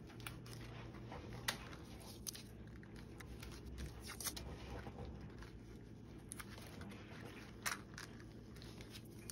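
Faint handling of a cardboard piece and painter's tape: soft rustling with a few small sharp clicks, the loudest at the very end.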